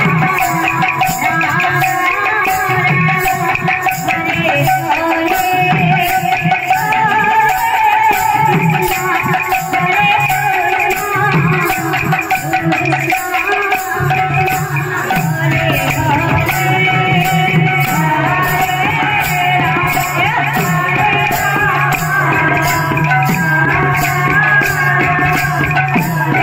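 Kirtan devotional music: hand cymbals clashing in a fast, steady beat over drum, with a sustained melody line carried by voices and instruments.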